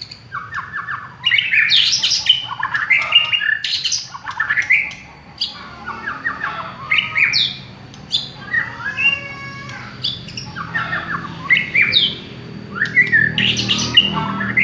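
White-rumped shama (murai batu) singing a loud, varied song of clear whistles, quick repeated-note runs and harsh chattering rattles, phrase after phrase with short pauses. It is the kind of song played as a lure to stir other shamas to sing.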